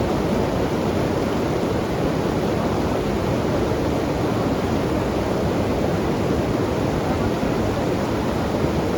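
Fast river current rushing steadily, a dense even water noise.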